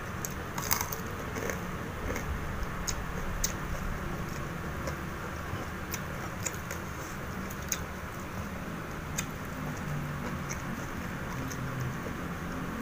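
A man chewing fried duck close to the microphone, with scattered short sharp clicks and smacks of mouth and fingers as he tears the meat apart by hand.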